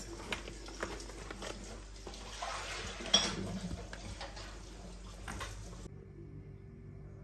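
Crinkling and rustling of a coffee bag being handled, with scattered clicks and one sharp click about three seconds in. Near six seconds it gives way to a quieter low steady hum.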